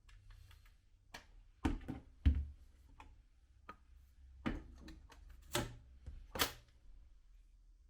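Restored rifle's action being worked by hand: a series of about eight sharp metal clicks and clacks at uneven intervals, the loudest about two seconds in.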